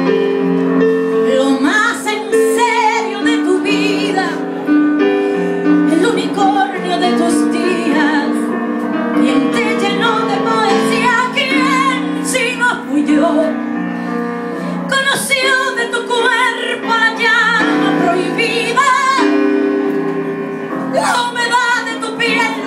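A woman singing a slow Spanish-language ballad with heavy vibrato, accompanying herself on a stage piano keyboard with sustained chords.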